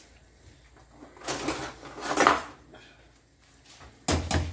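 Metal slotted spoon stirring fusilli in a frying pan, with two bouts of scraping about a second and two seconds in. Near the end comes a short clatter with a low knock.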